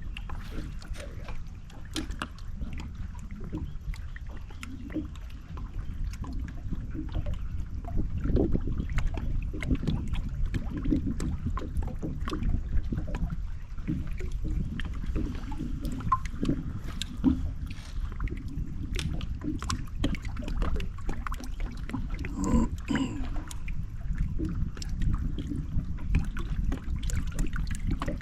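Fishing boat on the water: a steady low rumble with many small knocks and clicks scattered through it, a little cluster of them about three-quarters of the way in.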